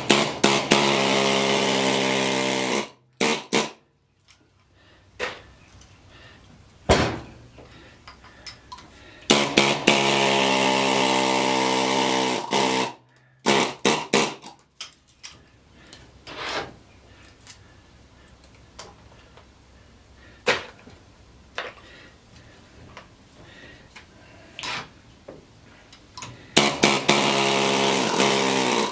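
Pneumatic air chisel hammering in three short bursts of a few seconds each, a fast rattling buzz as it cuts the copper windings out of an electric motor stator. Between bursts come scattered light clicks and knocks of the chisel and metal.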